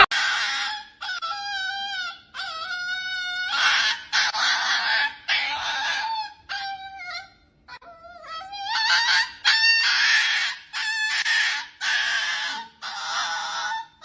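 An animal calling over and over: pitched calls that bend up and down alternate with harsh, hissing-sounding ones, with a short pause about halfway through.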